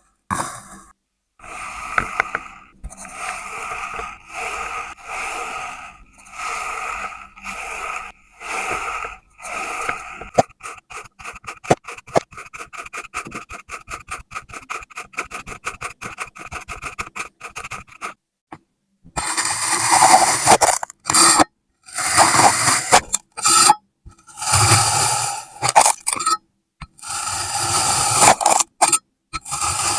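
Kinetic sand being cut and scraped: a series of short, gritty scraping strokes, then about eight seconds of rapid fine crackling ticks, then louder, longer scrapes near the end.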